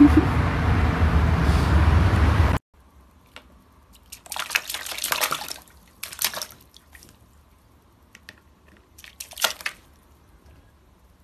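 A steady loud background din cuts off suddenly about two and a half seconds in. After it, water splashes and slops in a plastic bucket as a kitten paws at it, in three short bouts with quiet between.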